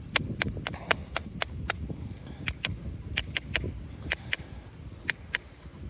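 MI6 pinpointer giving short, sharp chirps at an uneven rate, about two to four a second, over low rumbling handling noise.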